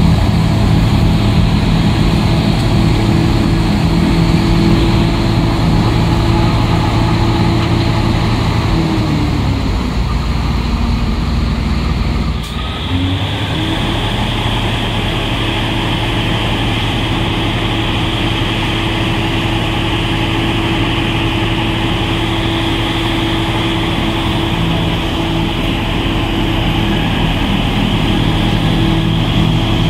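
Loader-mounted Larue snowblower on a Caterpillar wheel loader running hard, its engine and rotor driving a steady rush of snow up the chute into a dump truck, with the truck's diesel alongside. The engine note sags lower about nine seconds in, breaks off suddenly a little after, then settles back to the same steady running.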